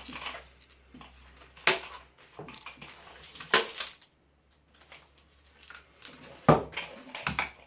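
Sharp knocks and clacks of fan parts being handled and pulled apart during a teardown, four main strikes with smaller rattles between them, the loudest about two-thirds of the way through.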